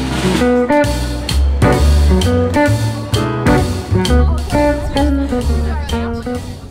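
Background music: a quick run of short, separate notes over a strong bass line.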